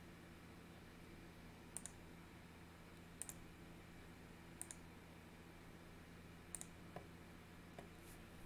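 Faint sharp clicks, four quick double clicks about a second and a half apart and then a few lighter ticks near the end, over a low steady hum in a quiet small room.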